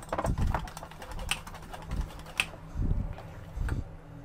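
Hand wire whisk beating thick flour batter in a stainless steel bowl: the tines make rapid clicking and scraping against the metal, with a few dull thuds. The clicking thins out over the last second or so as the whisk is lifted out.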